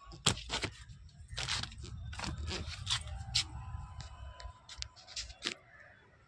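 Handling noise from a handheld phone being moved about: a low rumble with a string of sharp clicks, scrapes and rustles, the loudest about a third of a second in.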